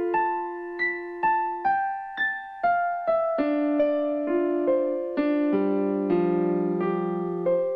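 Background music: a keyboard melody of single struck notes, about two a second, stepping downward, then continuing over held low notes.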